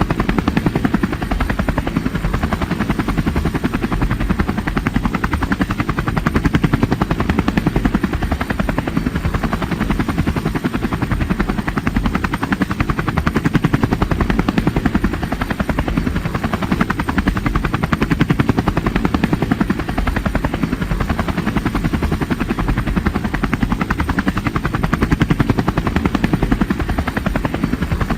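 Helicopter sound effect: a fast, steady rotor chop over a low engine rumble, swelling slightly every few seconds.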